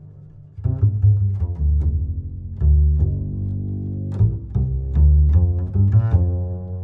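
Background music of plucked low strings, a run of short bass notes with some held longer.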